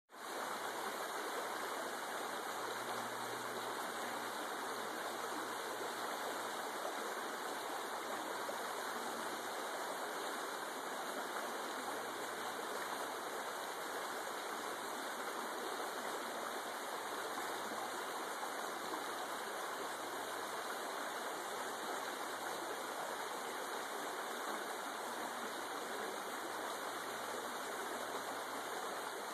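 A shallow mountain creek running steadily over and around rocks.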